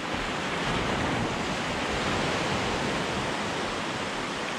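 Small surf breaking and washing up the beach in a continuous rush, swelling to its loudest about two seconds in and easing off, with wind buffeting the microphone.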